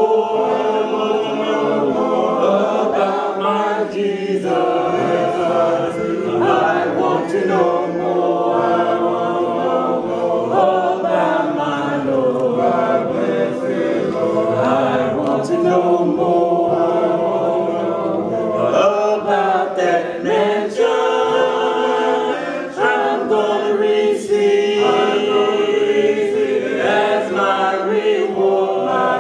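A church congregation singing a hymn a cappella, voices together in long held notes with no instruments.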